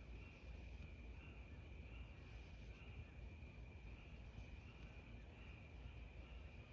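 Faint, steady insect chirping, likely crickets, at night: a high trill that swells in a regular pulse a little more than once a second, over a low background rumble.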